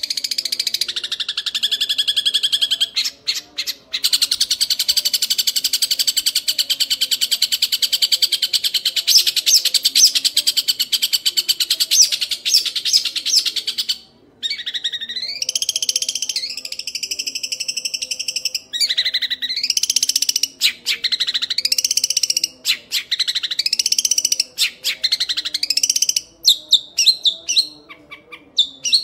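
Young long-tailed shrike giving a long, rapid chattering call ('ngekek'). About halfway through it switches to a string of repeated rising-and-falling phrases, each about a second and a half long, and near the end breaks into scattered short notes.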